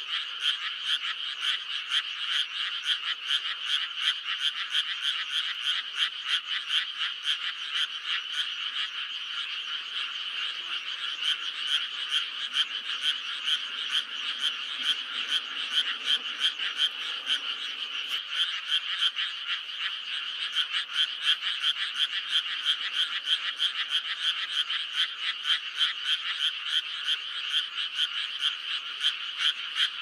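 A dense chorus of many frogs croaking at once, a continuous mass of rapid, overlapping pulsed calls.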